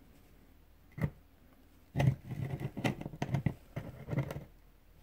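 Handling of a small metal helping-hands clamp holding a slot-car part: a single click about a second in, then a run of knocks and rattles for a couple of seconds as the arms are moved.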